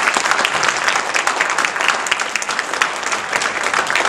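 Audience applauding steadily: many hands clapping at an even level, an ovation at the end of a talk.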